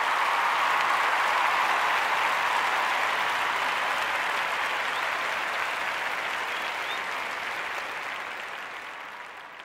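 Crowd applauding, the sound gradually fading out toward the end.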